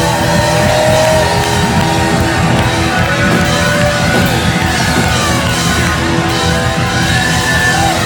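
Live rock band playing loud: a Les Paul-style electric guitar plays a lead with bending notes over drums and bass, heard from among the audience.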